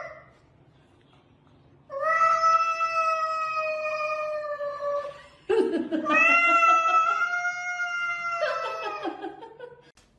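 A cat yowling: two long, drawn-out wails of about three seconds each, the first starting about two seconds in and the second with a rough, harsh start.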